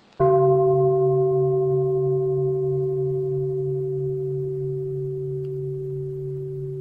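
A Buddhist bowl bell struck once, about a quarter second in, then ringing on with a slowly fading tone whose low hum wavers.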